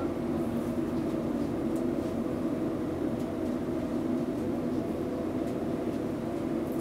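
Steady hum of kitchen machinery running without change, with a few faint light taps as tomato slices are laid on flatbread.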